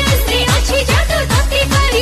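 DJ-style electronic dance music with a fast, steady kick-drum beat, each kick dropping in pitch, under a bending melody line.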